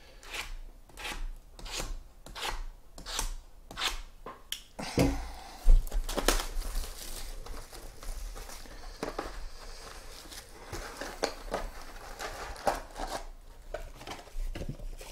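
Hands working a shrink-wrapped trading-card box: a run of quick scraping, snipping strokes, then a thump about five seconds in, then plastic wrap crinkling and tearing as the box is opened and its foil packs tipped out.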